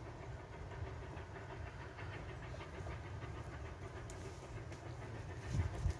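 Distant steam locomotive working hard, its exhaust beating in an even chuffing rhythm, over a steady low rumble that grows louder near the end.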